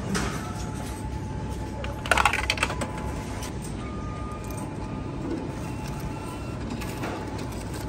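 Coins fed into a supermarket self-checkout's cash slot, clattering through the machine about two seconds in, then two short electronic beeps from the checkout as the payment goes through. Steady shop background noise underneath.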